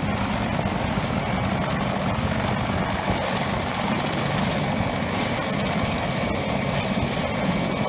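Light helicopter running on the ground with its main rotor turning: a steady rotor chop and engine noise, with a thin steady high whine over it.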